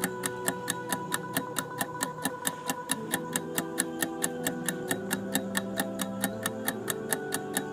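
Countdown timer ticking about five times a second, over soft background music with held notes.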